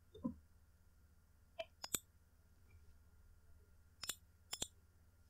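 Computer mouse button clicks: a few short, sharp clicks in pairs, about two seconds apart, with quiet between.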